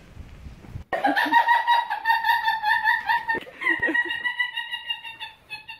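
High-pitched, chipmunk-like cartoon laughter sound effect, a rapid pulsing giggle that starts abruptly about a second in and fades out near the end.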